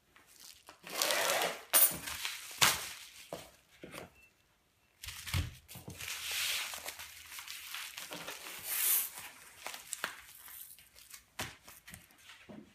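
Bubble wrap crinkling and rustling as hands wrap it around a 5 lb weight plate, with a few sharp clicks early on and a brief near-silent pause about four seconds in.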